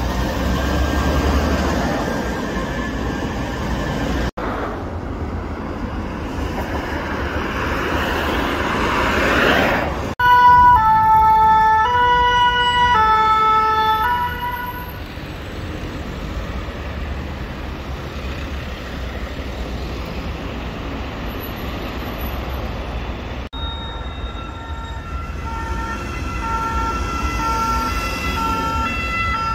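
French emergency-vehicle two-tone sirens over road traffic. About a third of the way in, a fire-brigade rescue van's siren loudly alternates between two pitches, switching every half second or so. Near the end, an ambulance's siren repeats in short, alternating tones.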